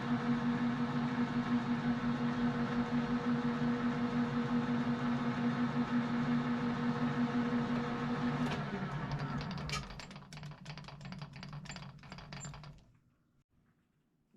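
Metal lathe running with a steady hum while a scissor-style knurling tool rolls a pattern into a brass bar under power feed. About eight and a half seconds in the hum drops in pitch as the lathe winds down, followed by a run of light clicks and taps before it goes quiet.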